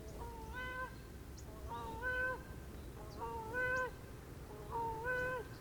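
Gray crowned crane calling: a two-note honk, the second note slightly higher and held, repeated four times at about one and a half second intervals.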